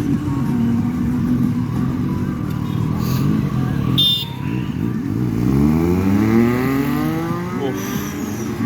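Superbike engine running steadily, then accelerating from about halfway, its pitch climbing for a few seconds. A brief high tone sounds about four seconds in.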